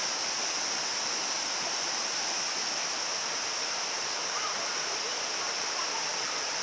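Waterfall water rushing and splashing onto rocks in a steady, unbroken roar of white noise.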